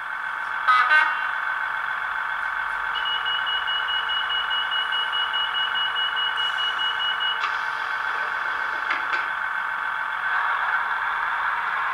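Sound decoder in a model Class 158 diesel multiple unit playing its engine shut-down sequence through the model's small built-in speaker: a steady diesel engine drone with a clack about a second in and a rapid high beeping from about three to seven seconds in.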